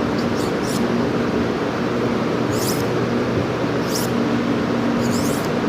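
Knife blade stroked across a diamond sharpening stone to touch up the heel, each stroke a short, high scraping hiss. There are three quick light strokes at the start, then single strokes about every second and a half, over a steady low hum.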